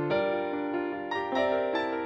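Background music: a keyboard tune of held chords, with new notes coming in every fraction of a second.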